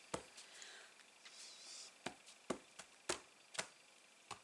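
Sharp light taps of a clear acrylic stamp block being pressed down on an ink pad and paper card, about six taps spaced irregularly.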